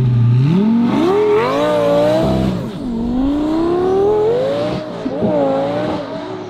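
Twin-turbo Lamborghini Gallardo V10 accelerating hard away from a standstill. The revs climb, drop at a gear change about three seconds in and climb again, then the sound falls and fades as the car draws off.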